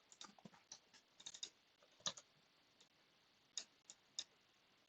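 Faint, scattered clicks of a computer keyboard and mouse, coming in irregular small clusters.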